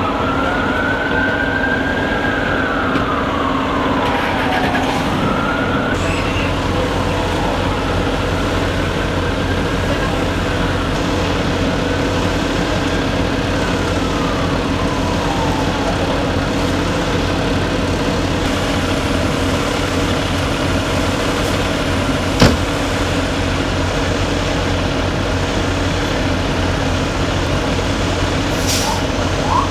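Ambulance siren wailing in slow rising and falling sweeps, dying away after about fifteen seconds, over a steady engine drone. A single sharp click about 22 seconds in.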